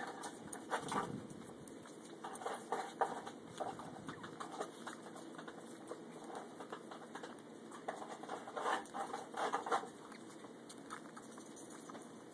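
Tiny Yorkshire terrier puppy suckling at a bottle's nipple: irregular little sucking and smacking clicks that come in bunches.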